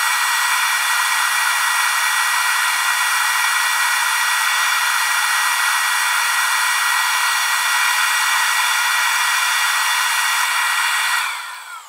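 Rose engine lathe's high-speed cutter motor and the dust-collection vacuum running together: a steady, loud whine over hiss. About 11 seconds in, the pitch slides down and the sound dies away as they are switched off and spin down.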